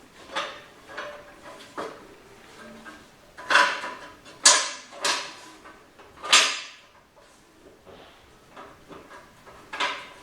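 Metal parts of a 5R55S automatic transmission being handled and fitted: a string of clinks and knocks, with four sharp clanks in the middle, the first leaving a brief metallic ring.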